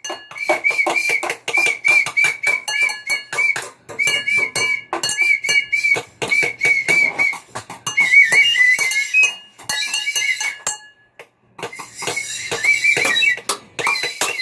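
Rapid sharp clinking taps with a high, warbling whistle-like tone repeating in short notes over them.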